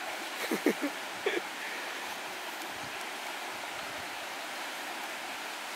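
Steady rush of a rocky river's rapids, water pouring over boulders. A person's voice sounds briefly twice in the first second and a half.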